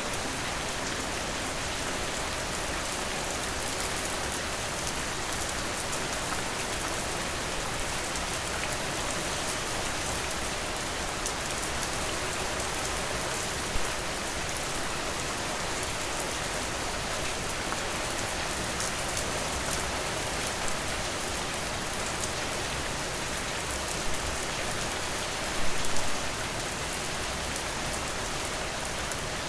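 Steady rain falling on a porch, an even hiss with fine drop ticks. A few sharper, louder pops stand out, with a short cluster of them near the end.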